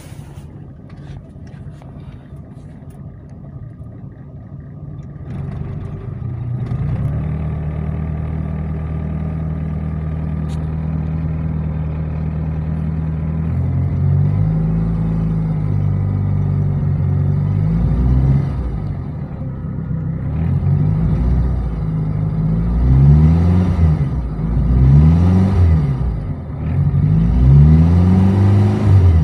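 Daihatsu Charade Classy car engine, running on a cheap CDI combined with an added TCI ignition unit, heard from inside the cabin. It idles steadily, then from about halfway it is revved up and let fall back several times in a row.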